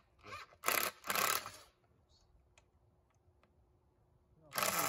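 Screw gun driving a screw into a wooden post and brace board in short bursts: three quick runs in the first second and a half, then a pause with a few faint clicks, and another run near the end.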